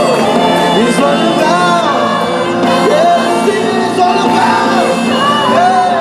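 Live worship song played by a string ensemble of violins holding sustained chords, with voices singing the melody over it.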